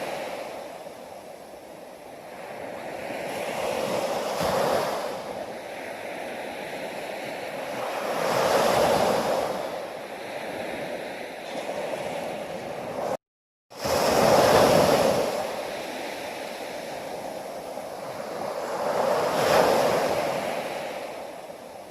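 Ocean surf: waves surge and recede about every five seconds, each swell rising to a peak and then fading. A little past halfway the sound cuts out completely for about half a second.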